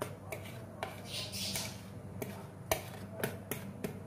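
Spatula scraping thick chocolate cake batter out of a bowl into a round steel cake tin: a soft scraping rush about a second in and light clicks and taps on the rims, one sharper a little past the middle, over a steady low hum.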